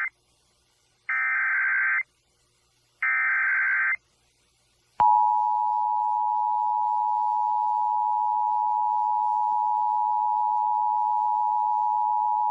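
Emergency Alert System SAME header: two one-second bursts of buzzing digital data tones a second apart, then about a second later the steady two-tone EAS attention signal (853 and 960 Hz) comes on and holds, announcing a tornado warning.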